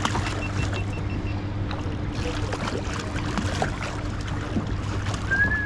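Steady low hum of a fishing boat's motor, with scattered small clicks and knocks over it. A short high whistle near the end.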